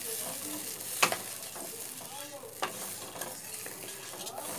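Wooden spatula stirring a thin mustard curry in a hot nonstick pan, a cup of water just added to the fried masala, the liquid sizzling steadily. The spatula knocks sharply against the pan about a second in and more lightly a little past the middle.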